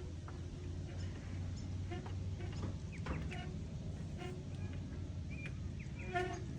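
Birds chirping in short calls over a steady low hum, with one louder call about six seconds in.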